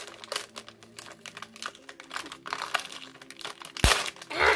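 Packaging being crinkled and pulled open by hand: a run of scratchy rustles, then a sharp snap about four seconds in and a louder crinkling rip just after it.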